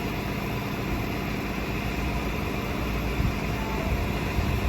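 Vehicle engine running steadily: a low rumble under a steady hiss.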